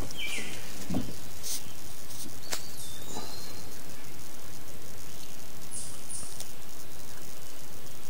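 Steady outdoor background noise with insects, broken by a few faint high chirps and a thin whistle, and a couple of light clicks.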